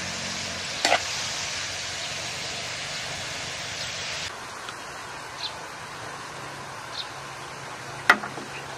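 Wok of pig blood and bean sprouts frying with a steady hiss, with a metal ladle clinking about a second in. About four seconds in the hiss stops, leaving quieter background with a few light clicks and a sharper click near the end.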